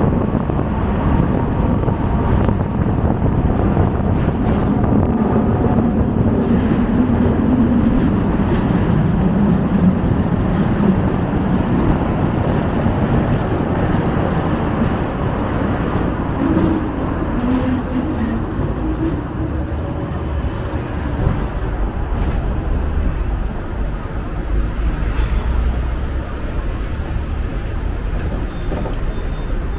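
Hong Kong double-decker tram running along its rails, heard from on board: a steady rumble, with a low hum that shifts in pitch through the middle and the level easing slightly near the end.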